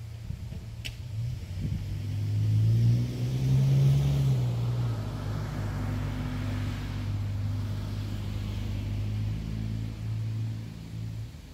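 A motor vehicle's engine running near the house. It rises in pitch and loudness about three seconds in, then settles into a steady drone before cutting off shortly before the end.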